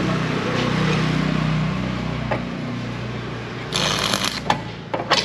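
Arc welding on a stainless-steel bracket: a steady electrical hum, then about four seconds in a short burst of rough crackling from the arc lasting under a second, followed by a few sharp clicks near the end.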